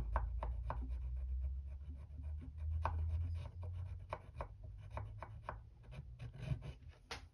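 Steel screwdriver tip rubbed back and forth on a Smith's sharpening stone, a run of short scraping strokes about three a second. The sides of a gunsmithing screwdriver blade are being polished to take off rough spots.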